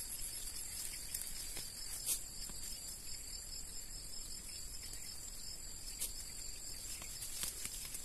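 Steady high-pitched chorus of insects, with a few short snaps and rustles as weeds and seedlings are pulled up by hand from the ground.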